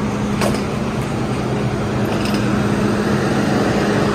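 MTR M-Train standing at a platform with its doors open, giving a steady low hum from its onboard equipment, with a couple of short sharp clicks.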